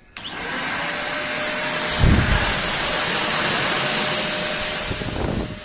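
Deerma handheld vacuum cleaner switched on: the motor runs up to a steady whine over a loud rush of air, with a brief low surge about two seconds in, then it is switched off near the end and winds down.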